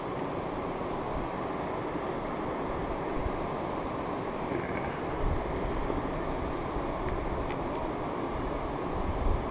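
Steady wind noise buffeting the microphone, a continuous low rumbling hiss with uneven gusts.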